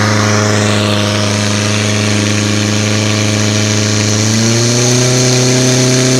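Portable fire pump's engine running at high, steady revs while the pump drives water through the hoses to the spraying jets. Its pitch steps up slightly about four and a half seconds in.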